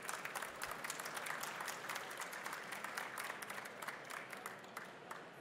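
Audience applauding: many hands clapping together, thinning out and fading near the end.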